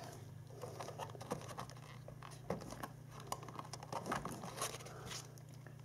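Hands handling the engine's plastic air filter housing and pleated paper filter element: scattered small taps and rustles over a faint steady low hum.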